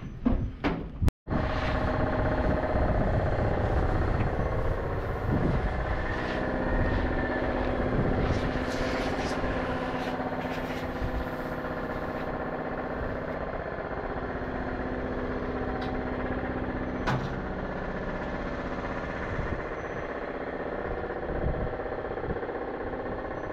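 Volvo truck's diesel engine idling steadily, with the sound cutting out briefly about a second in.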